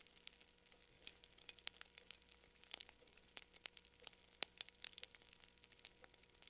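Hardwood campfire crackling faintly, with irregular sharp pops several times a second.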